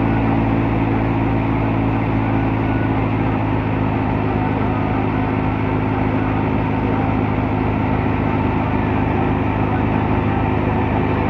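Massey Ferguson 385 tractor's diesel engine running at a steady speed under load, driving a wheat thresher through its PTO, with the thresher's drum and blower running along with it. The hum stays even throughout.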